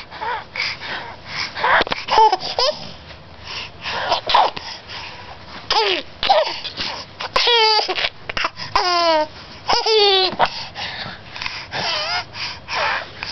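Baby babbling and giggling between noisy, wheezy breaths, with two quick runs of stepped, falling squeals about seven and nine seconds in. The wheeze is from a chesty spell the baby has today.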